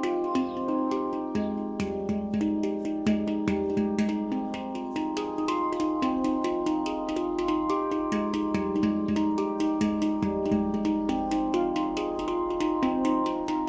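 Nimo handpan tuned to the F low Pygmy scale, played with the fingers: a gentle, steady stream of quick taps on the tone fields, several a second, with the notes ringing on and overlapping.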